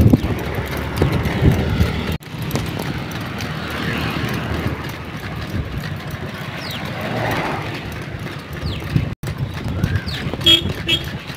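Bullock cart on the move on a paved road: the pair of bulls' hooves clopping on the asphalt as the cart rattles along. A brief two-note sound comes near the end.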